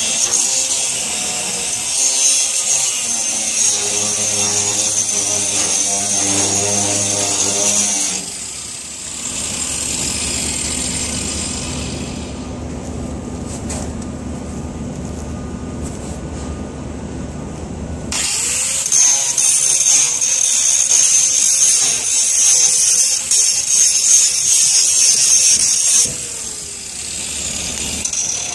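Handheld angle grinder grinding rusty steel plate: a loud high whine with a grinding hiss for about the first eight seconds and again from about 18 to 26 seconds, with a lower, duller steady noise in between.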